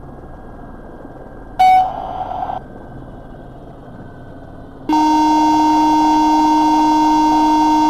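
A short loud burst about a second and a half in. Then, about five seconds in, a steady electronic buzzing tone starts abruptly and holds at one pitch, typical of a helicopter cockpit warning horn heard over the intercom.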